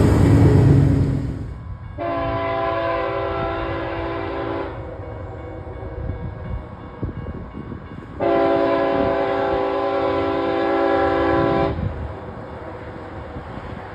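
Two long blasts of a locomotive's multi-note air horn, each about three seconds, a few seconds apart, with the low rumble of the train between them. A loud rushing noise dies away in the first second or two, before the first blast.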